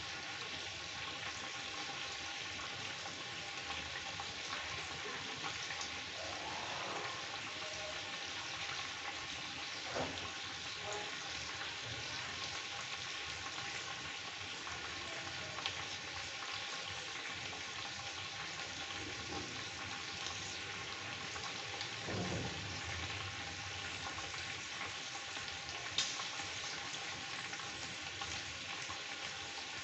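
Chicken pieces frying in oil and masala in a kadhai, a steady sizzle and crackle. A few sharper pops spit out of it along the way.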